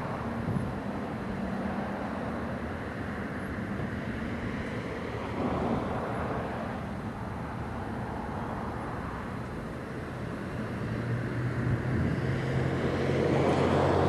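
Traffic noise: a steady background of engines, with one engine's hum growing louder over the last few seconds as it approaches.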